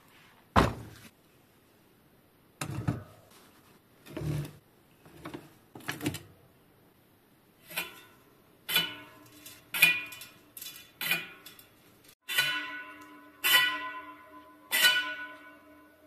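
Metal clunks and knocks from a bicycle truing stand as a wheel is fitted and the stand adjusted. First a few single dull knocks, then from about halfway a quicker run of sharp metallic knocks, each leaving a short pitched ring.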